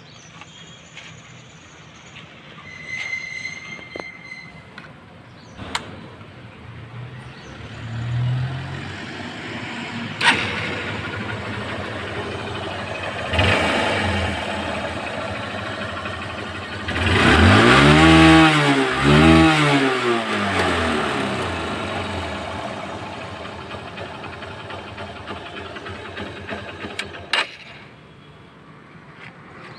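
Hero Honda CBZ's single-cylinder four-stroke engine, freshly fitted with new valves and a piston-barrel kit, starting up about a quarter of the way in and idling. Past the middle it is revved twice in quick succession, pitch rising and falling each time. It cuts off a couple of seconds before the end.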